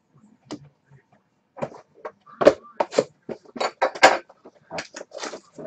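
Sealed cardboard hockey card box being handled on a wooden table: a quick run of knocks, taps and scrapes starting about a second and a half in.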